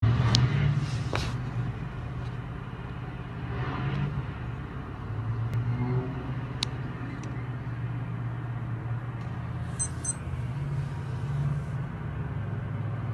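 Low, steady rumble of military vehicle engines moving along city streets below, heard from a distance; the hum swells and eases a few times as the vehicles pass. A few short sharp clicks stand out above it.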